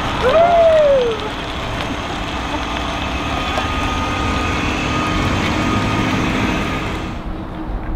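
Battery-electric city bus pulling away, a low steady rumble of motor and tyres with a faint steady whine in the middle. Near the start a person gives one short whoop that rises and then falls in pitch.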